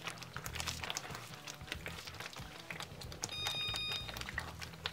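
Red plastic spoon stirring thick, simmering egusi soup in a steel pot: faint scrapes and small clicks against the pot over a soft bubbling. About three and a half seconds in, a short high beep-like tone of several pitches sounds for under a second.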